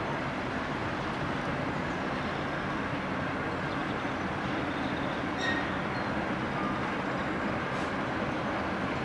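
British Rail Class 08 diesel shunter, with its English Electric six-cylinder diesel engine running steadily as the locomotive moves slowly with a rake of coaches. A brief high-pitched squeak about five and a half seconds in.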